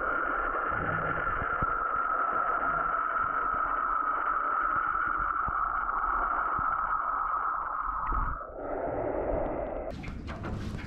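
Muffled underwater sound from a camera on the line while a halibut is hauled up: a steady whine that slides down in pitch and dies away about eight seconds in. Near the end, open-air sound returns with water splashing as the fish breaks the surface.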